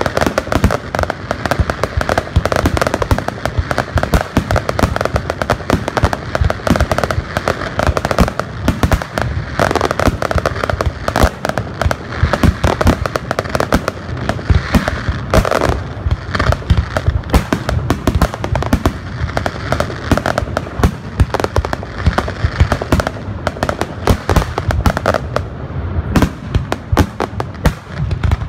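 Aerial fireworks shells bursting in a dense, unbroken barrage of loud bangs.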